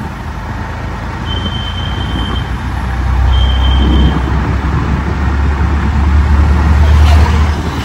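Riding in a moving auto-rickshaw: steady engine and road noise with a deep low rumble that grows louder over the second half. Two short high steady tones sound about a second in and again about three seconds in.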